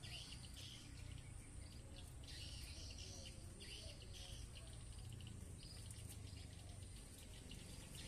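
Lovebirds chattering faintly in short bursts of high, buzzy chirps, over a steady low hum.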